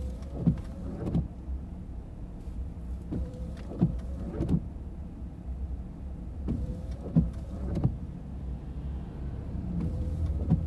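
Car interior with the engine idling as a steady low rumble. Short knocks come in clusters of two or three about every three seconds.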